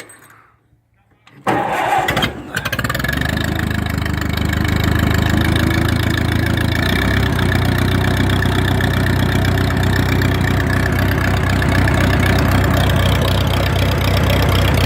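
Massey-Harris 22 tractor's four-cylinder engine starting cold: about a second and a half in it catches, stumbles briefly, then settles into a steady idle.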